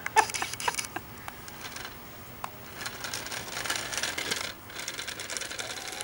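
Hard plastic clicks from a toy remote-control ladybird car being handled, then its small geared drive motor whirring in two spells, the first about a second and a half long and the second starting about a second later.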